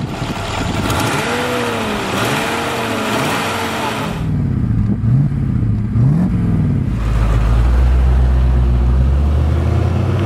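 Mercedes-Benz 300SEL 6.3's 6.3-litre overhead-cam V8 starting and being revved: its pitch rises and falls several times, then it settles into a steady deep note for the last few seconds.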